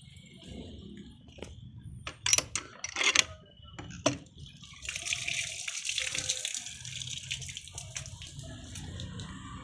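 A few sharp knocks and clatters about two to four seconds in, then water running and splashing steadily.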